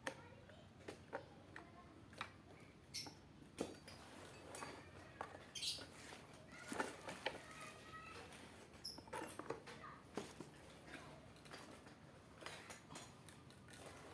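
Faint, irregular clicks and light taps of hand work on a chainsaw: parts and tools being handled during fitting of the guide bar and chain.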